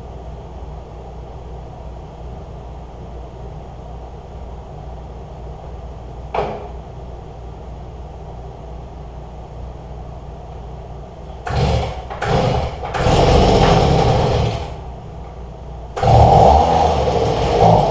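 Electric leaf blower run in short loud bursts of one to two seconds, three times in the last third, blowing sanding dust off a plywood tabletop before staining. A low steady hum lies underneath.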